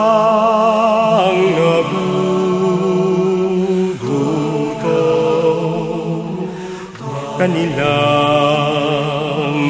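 Slow background music from the song: long held notes with vibrato over a steady low bass, moving to a new chord a few times.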